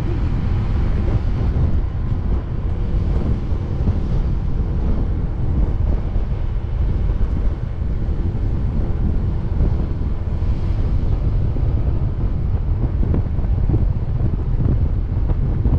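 Steady wind rumble buffeting the microphone of a camera carried on a moving motor scooter.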